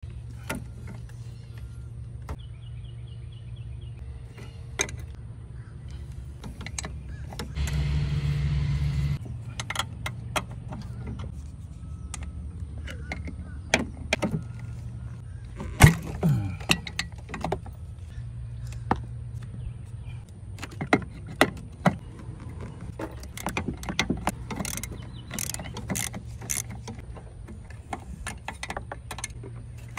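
Wrench and ratchet clicking and clinking on the brake master cylinder's metal fittings and mounting nuts: scattered sharp clicks and knocks, the loudest about sixteen seconds in. A steady low hum runs underneath, and a loud rushing noise lasts about a second and a half some eight seconds in.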